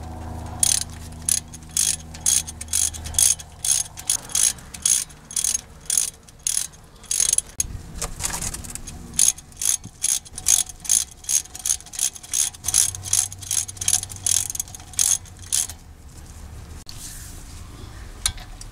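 Ratchet wrench clicking in quick, even strokes, about two to three clicks a second, with a short pause about halfway, as it drives in the brake caliper bolts.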